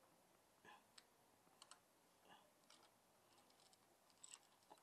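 Faint, scattered light clicks and taps of small metal engine parts being handled while a Honda Super Cub's cam chain is fitted, a handful of sharp ticks at uneven intervals.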